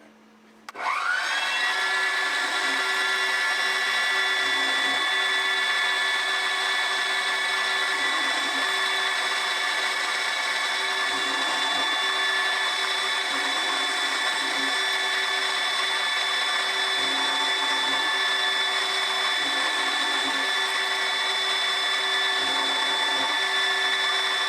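Milling machine starting about a second in, its whine rising as the spindle spins up, then running steadily while milling the fork of a small stainless steel plunger.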